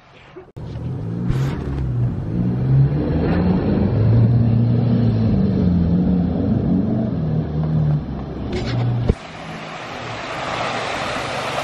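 Holden RC Colorado pickup's engine revving hard and unevenly, its pitch rising and falling, as it drives through a muddy water hole, with mud and water splashing. The engine sound cuts off suddenly about nine seconds in and gives way to a building hiss.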